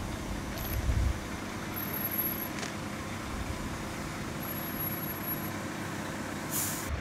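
Fire engines' diesel engines idling, a steady low drone, with a short hiss near the end.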